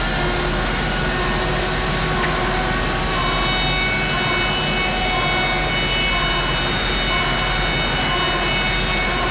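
Table-mounted router cutting the outer rollover of the bearing edge on an oak snare drum shell: a steady high whine over a rushing cutting noise, growing fuller about three seconds in.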